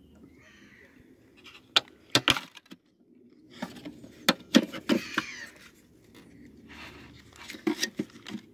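Sharp plastic clicks and rattles as the bulb holder of a Citroën C4 Picasso tail light is unclipped and pulled out of the lamp housing, coming in three groups of clicks.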